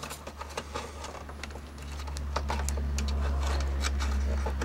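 Small clicks and ticks of fingers working a plastic wire clip and cables against a monitor's metal chassis, with a low steady hum that grows louder from about two seconds in.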